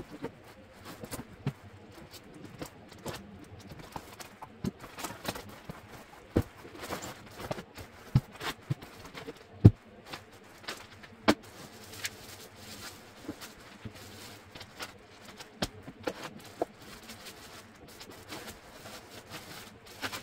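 Unpacking sounds: a cardboard box and moulded pulp tray being handled, with paper and plastic bags rustling and irregular taps and knocks, the loudest a single thump about halfway through.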